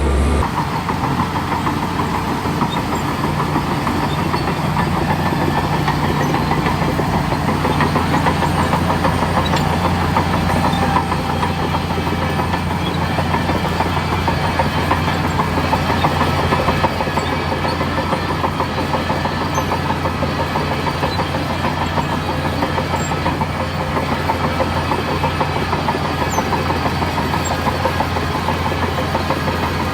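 Crawler bulldozer's heavy diesel engine running steadily, with a dense, fast, even rattle over the low engine note.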